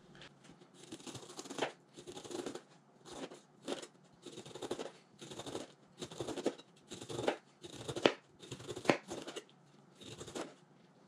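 Kitchen knife slicing down through the rind of a whole pineapple, about a dozen strokes roughly a second apart, each with a crunchy cutting sound and often a sharp tap as the blade meets the cutting board.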